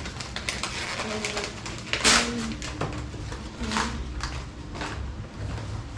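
Wrapping paper rustling and tearing as a present is unwrapped, in short bursts: the loudest about two seconds in, another near four seconds.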